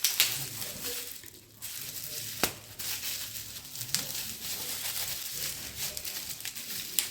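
Crinkling and rustling of packaging being handled, with a few sharp clicks or knocks of parts being moved.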